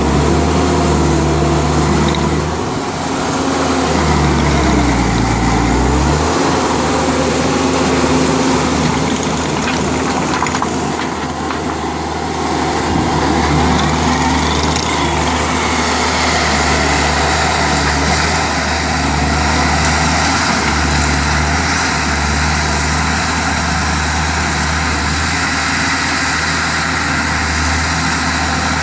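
New Holland C190 tracked skid steer loader's diesel engine running steadily as the machine is operated. The engine note dips and comes back up about three to six seconds in.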